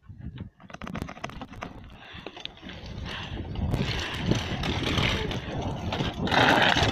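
Wind rushing over the microphone and rattling clatter of a bicycle rolling fast over pavement, growing steadily louder as it picks up speed.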